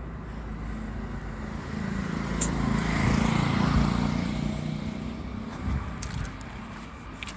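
A motor vehicle passing by on the street, its engine and tyre noise growing louder to a peak about three to four seconds in and then fading away.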